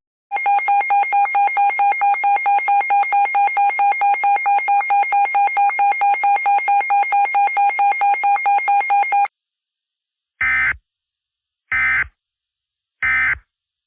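Weather radio alert alarm going off: a fast beeping tone, about five or six beeps a second, that cuts off suddenly about nine seconds in. It is followed by three short EAS data bursts (the end-of-message code), evenly spaced about a second and a half apart.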